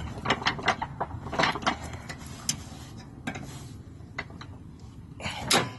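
Metal clicks and clanks of a riding mower's deck linkage being worked into place by hand: a quick run of sharp clicks in the first two seconds, then sparser ticks, and a louder rustle shortly before the end.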